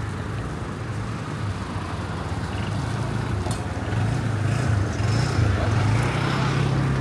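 A steady low engine hum over general street noise, growing a little louder about halfway through.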